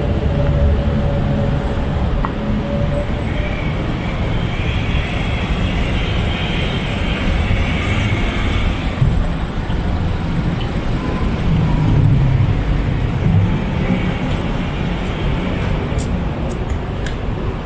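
City street ambience: a steady low rumble of road traffic and engines, with a vehicle's engine hum in the first few seconds.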